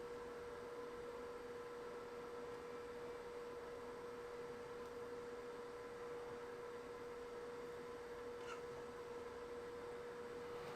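A faint, steady hum at one mid pitch, unchanging throughout, with a small tick about eight and a half seconds in.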